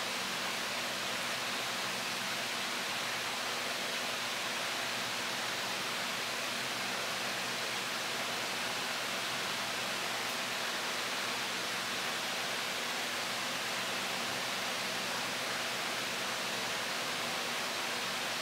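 A steady, unchanging hiss with a faint low hum beneath it, and nothing standing out from it.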